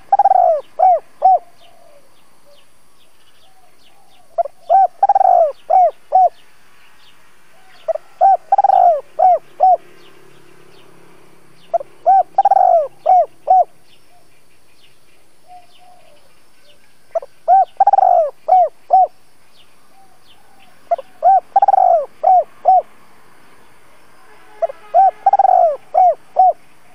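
Spotted dove cooing its calling song: a short note, a long swelling coo, then two or three quick clipped notes, repeated seven times about every four seconds.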